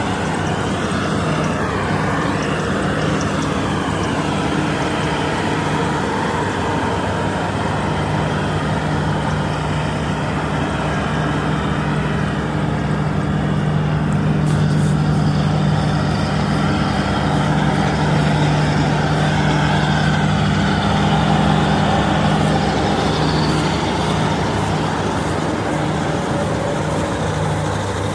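Combine harvester running steadily under load, its diesel engine droning with a strong low hum over the clatter and rush of the cutting and threshing machinery.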